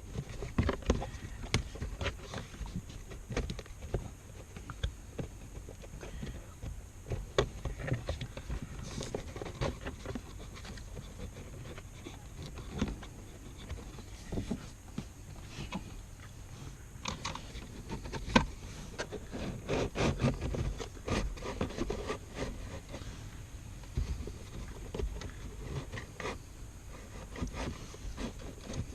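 New pollen filter being worked into its plastic housing under a VW T5 Transporter's dashboard: irregular scraping and rubbing with scattered light knocks and clicks.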